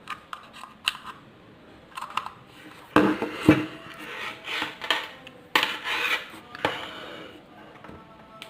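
Handling noise from a USB cable, phone and power bank being picked up and plugged together: scattered clicks and scraping of plastic, with louder clatters about three seconds in and again around five and a half and six and a half seconds in.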